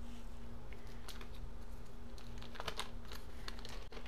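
Scattered light taps, clicks and rustles of sticks of butter and their wrappers being handled over a glass stand-mixer bowl, over a steady faint hum.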